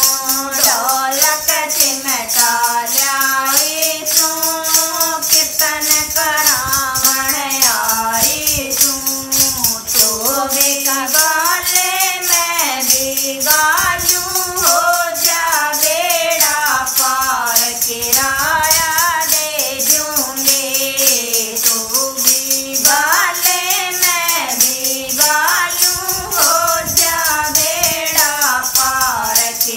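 Women singing a Hindi devotional bhajan, accompanied by handheld plastic tambourines with metal jingles shaken in a steady, even rhythm.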